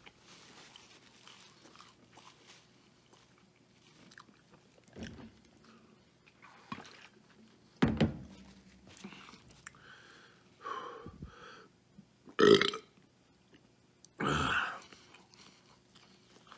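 A man burps several times during a heavy burger-eating challenge, the loudest burp about two-thirds of the way in, with quiet chewing of a burger in between.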